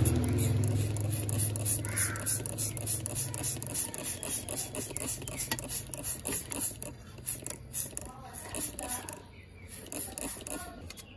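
Wet fingers rubbing and scrubbing a soapy watch case: a dense run of small scrapes, squelches and clicks. A low hum fades out over the first few seconds.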